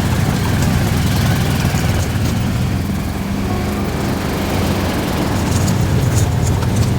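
A motor vehicle's engine running at a steady speed, a low steady hum under a constant rushing noise.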